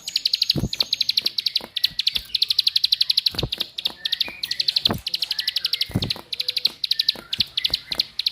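Ciblek (prinia) giving its rapid 'klik-klik' clicking call: high runs of about fifteen clicks a second, broken by short pauses. A few dull low thumps sound now and then.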